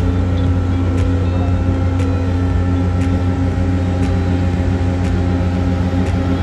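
Ferry deck machinery running with a steady low hum, with a sharp tick about once a second.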